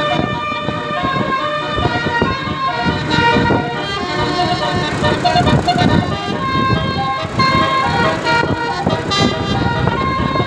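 A bus's 12-note Basuri 'telolet' horn played continuously as a melody, with held notes changing pitch every half second or so.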